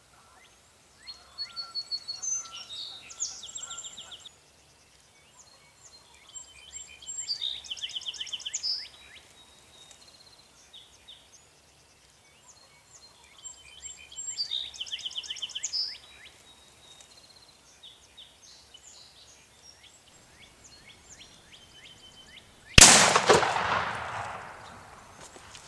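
Songbirds singing in three short bouts of quick, high trills and chirps, then near the end a single loud shotgun blast that rolls away in a long fading echo: a shot at a tom turkey.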